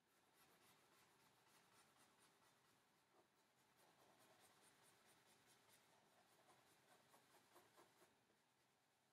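Faint, quick scratching of a charcoal stick shading heavily on paper, stopping about eight seconds in.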